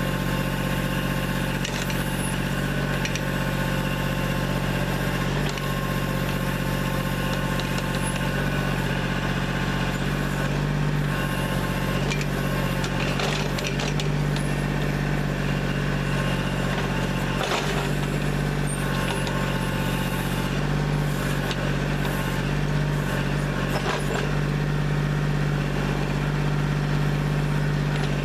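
Kubota backhoe's diesel engine running steadily, with a few short knocks and clanks from the machine.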